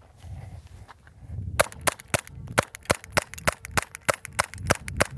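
Suppressed 9mm pistol fired in a rapid, even string, about three shots a second, starting about a second and a half in.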